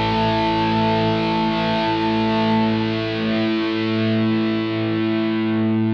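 Instrumental rock music: distorted electric guitar and bass holding long sustained notes, the chord changing about two seconds in, while the high cymbal wash fades away.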